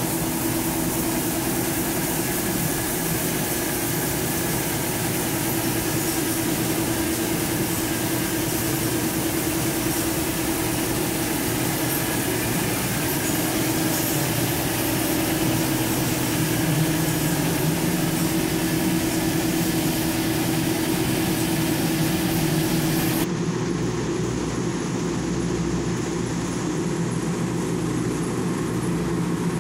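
Machinery of a polypropylene staple-fiber production line running: electric motors and blowers keeping up a steady, loud hum with a few steady tones. Near the end it changes abruptly to a duller, lower hum of the extruder line running.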